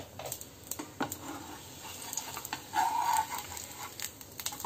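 Metal spatula clicking and scraping on a nonstick pan as it slides under a moong dal toast frying in ghee and lifts it, over a faint sizzle of the ghee. The sizzle jumps louder at the very end as the toast is turned over onto the hot pan.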